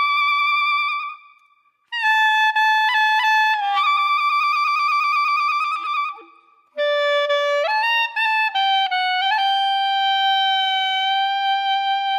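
Comedy sound-effect music: a single reedy wind instrument plays a comic tune of long held notes with some wobbling vibrato, in three phrases with short breaks about a second and a half in and about six and a half seconds in.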